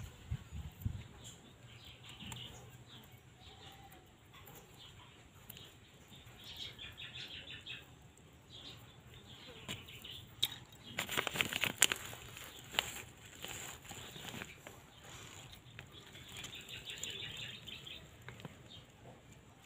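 Faint rustling and crackling as soil and a plastic grow bag are handled, loudest in a burst of crackling about eleven seconds in, with faint bird chirps in the background.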